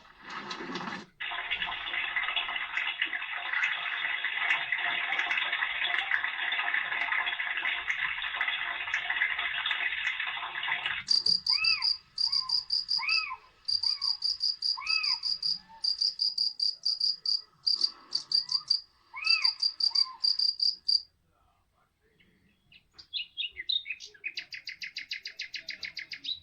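A run of recorded nature sounds: about ten seconds of steady rushing noise like falling rain, then about ten seconds of repeated high chirps mixed with short rising-and-falling whistled calls of birds and insects. After a brief quiet spell, a fast high trill plays near the end.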